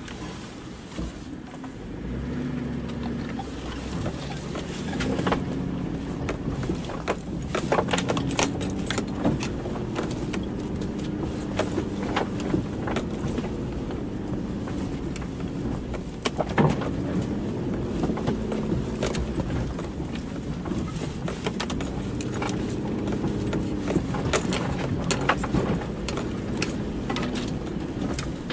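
A vehicle's engine running at low revs, its pitch rising and falling as it crawls over a rough forest track. Frequent sharp knocks and scrapes come from the body jolting over the ground and brushing through undergrowth.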